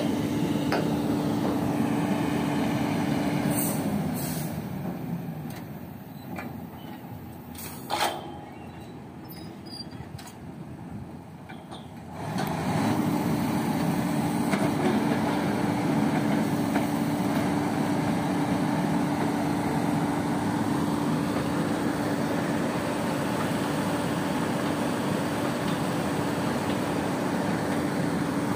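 Diesel engine of a well workover rig running with a steady tone over its noise. About four seconds in it falls back to a low idle, with one sharp metallic knock around eight seconds in. It revs back up about twelve seconds in and runs steadily under load.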